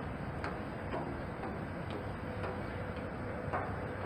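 Low, steady rumble of a train at the station, with light, sharp clicks about twice a second.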